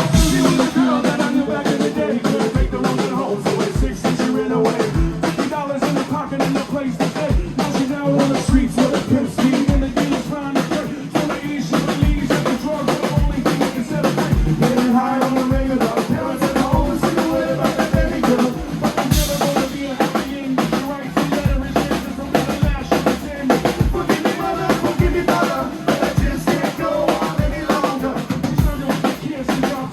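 Live rock band playing an instrumental passage without vocals: a drum kit keeps a steady bass-drum and snare beat under wavering pitched instrument lines.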